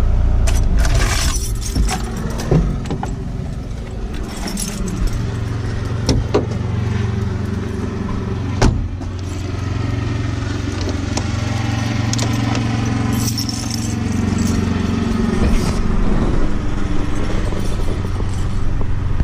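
Kubota 040 excavator's diesel engine idling steadily, with a few sharp knocks and metallic rattles over it.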